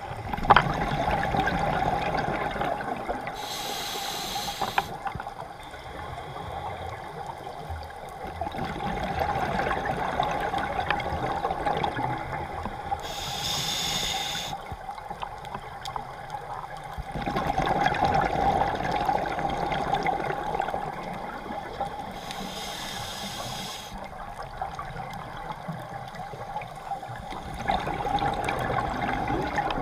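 Scuba diver breathing through a regulator underwater: three short hissing inhalations about nine seconds apart, with long stretches of exhaled bubbles between them. A steady hum runs underneath.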